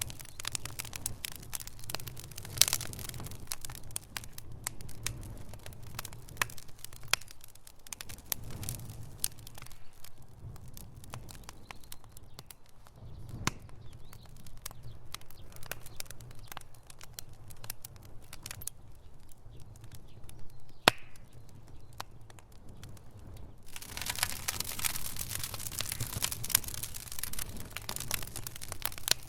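Fire in a fireplace crackling and popping over a low steady rumble. The crackles thin out in the middle, one sharp pop stands out, and the crackling grows dense again for the last few seconds.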